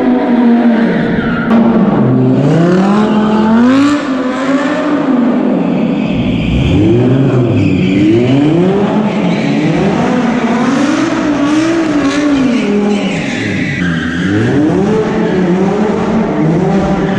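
Audi R8 V10 Plus's 5.2-litre V10 revving up and falling back over and over through its aftermarket exhaust as the car spins donuts, with the tyres squealing and skidding.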